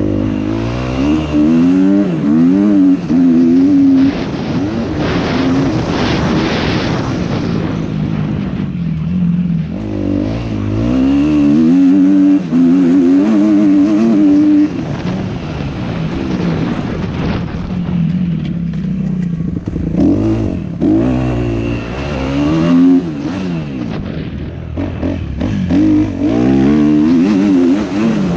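Kawasaki four-stroke motocross bike running hard under the rider, its engine revving up and down over and over through the gears, with brief drops where the throttle is chopped.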